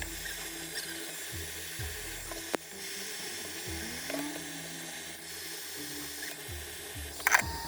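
A small motorised tool running steadily, with a sharp click about two and a half seconds in and a louder clatter near the end.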